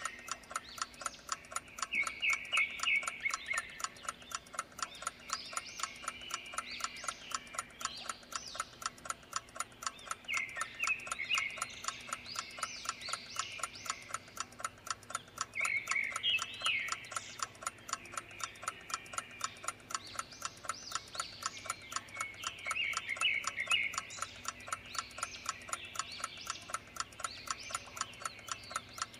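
A clock ticking steadily and evenly, over birdsong with short bursts of chirping every few seconds.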